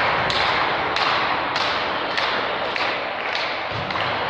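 Volleyball being played on an indoor gym court: a series of sharp thuds, roughly one every half second to second, over the steady din of a large hall.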